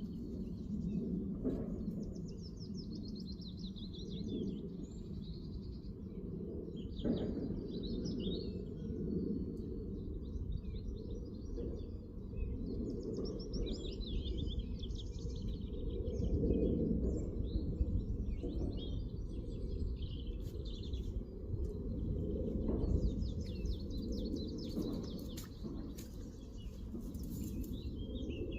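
Small songbirds singing in rapid trilled phrases that come and go, over a steady low rumble.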